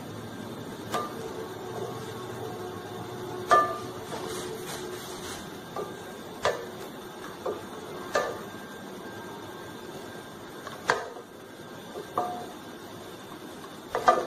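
A spatula knocking against the sides of an aluminium cooking pot while kheer is stirred: irregular light clunks, each with a short metallic ring, every second or two over a steady hiss.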